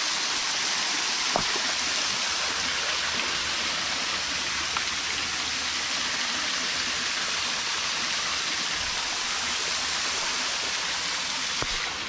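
A small waterfall splashing steadily, a constant rush of falling water. A couple of faint knocks can be heard, about a second and a half in and again near the end.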